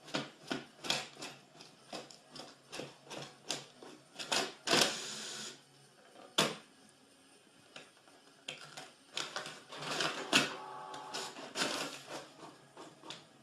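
Rapid irregular clicking and tapping, about three sharp clicks a second, with a short rushing scrape about five seconds in, a pause of a couple of seconds, then more clicks and a brief squeak.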